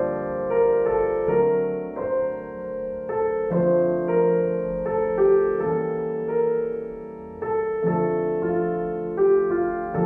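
Background piano music: a slow melody of held notes and chords, a new note struck every half second to a second. No water sound is heard.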